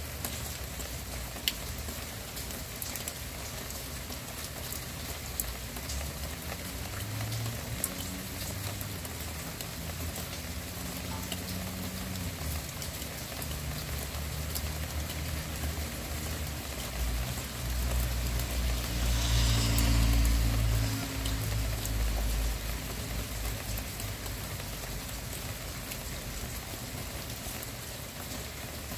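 Steady rain falling, with scattered drops ticking on a surface. A low engine drone of a passing vehicle builds from about six seconds in, is loudest around twenty seconds in with a brief hiss, then fades.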